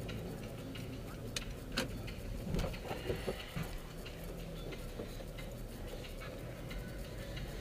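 Car-cabin noise at low speed: a steady low engine and road hum with scattered light clicks and rattles.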